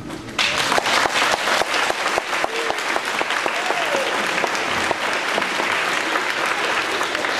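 Audience applauding, starting abruptly about half a second in and continuing as dense steady clapping.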